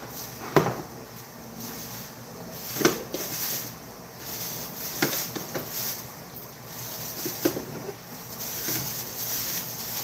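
Thin plastic grocery bag rustling and crinkling as it is handled, with a few sharp knocks against the counter, the loudest about half a second in and near three seconds in.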